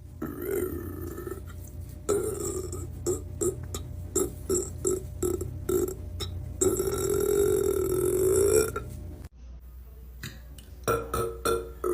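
A man burping: a burp lasting about a second and a half, then a quick run of short burps, then one long drawn-out burp of about two seconds.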